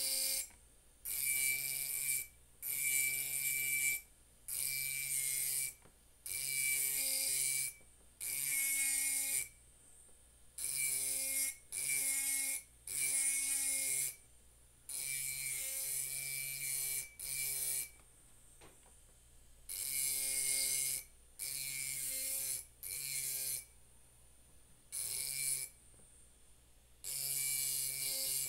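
Handheld rotary engraving tool grinding into a glass wine bottle. It runs in repeated bursts of about a second with short pauses between them: a high whine over a gritty hiss that starts and stops abruptly.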